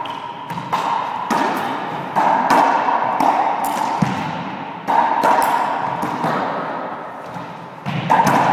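Racquetball rally: the rubber ball smacking off racquets, the walls and the floor in a quick, irregular run of sharp hits, each ringing on in the enclosed court.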